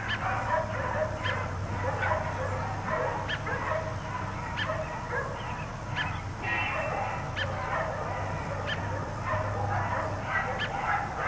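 Dogs barking over and over, a steady run of high, yappy barks about a second apart, some overlapping, with no let-up.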